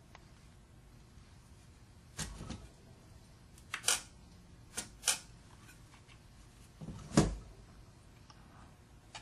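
Metal-on-metal clicks and knocks from reassembling an electric motor by hand, the end bell and through-bolts being fitted: about half a dozen sharp hits spread out, the loudest about seven seconds in.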